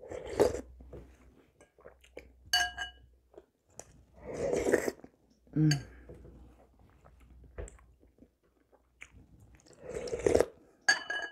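Eating soup from a spoon: slurping and chewing sounds at the start, midway and near the end, with a metal spoon clinking against a ceramic bowl three times, each clink ringing briefly.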